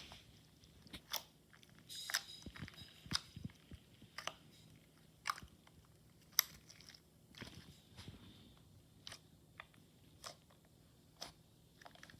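Slime being handled, squeezed and poked: scattered soft clicks and crackles at irregular intervals.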